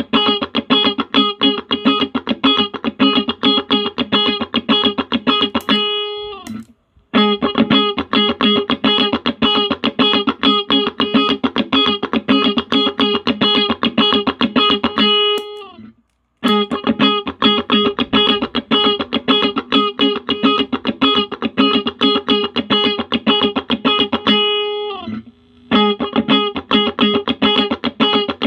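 Electric guitar played through a compressor pedal into a small Roland Cube amp: a quick run of picked single notes. The same phrase comes round three times, each ending in a held note that is cut off into a brief gap.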